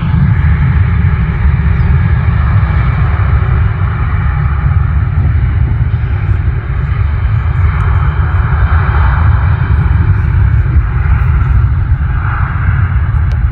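Jet airliner engine noise: a loud, steady rumble with a hiss above it that swells about two-thirds of the way in and again near the end.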